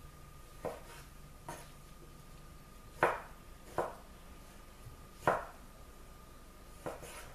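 Knife cutting cherry tomatoes on a wooden cutting board: six separate knocks of the blade against the board, roughly a second apart, the loudest about three and five seconds in.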